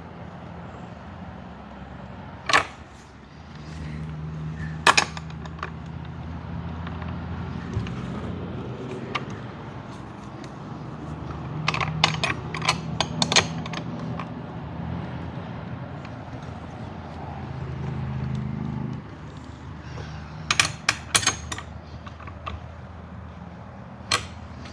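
Sharp metallic clicks and clinks from awning bracket parts and bolts being handled and fitted to a roof rack: single knocks now and then and two quick runs of clicks, one near the middle and one about three quarters through. A low steady hum sits underneath through most of the middle.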